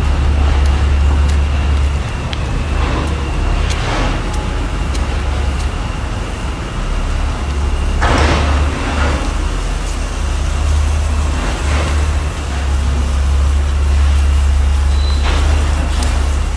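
Loud steady low rumble of outdoor background noise, with a noisy hiss, a faint steady high whine, and a louder noisy swell about eight seconds in.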